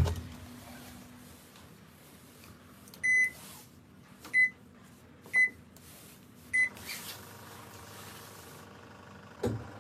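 Four short high beeps from a washing machine's control panel, about a second apart, as it is switched on and set to spin, followed by a single click near the end.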